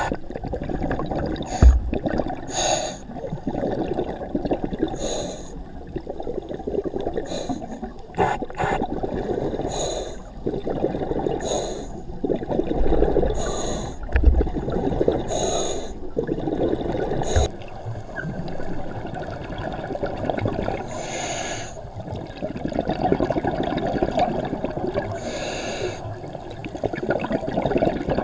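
Scuba diver breathing through a regulator underwater: a short inhalation every two to four seconds, each followed by a long stretch of bubbling exhalation.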